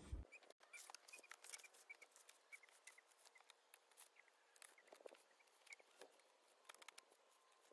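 Near silence: faint outdoor ambience with scattered faint ticks and short high chirps.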